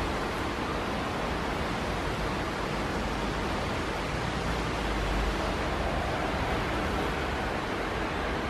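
Strong wind blowing: a steady rushing noise with a low, fluctuating rumble from gusts buffeting the microphone.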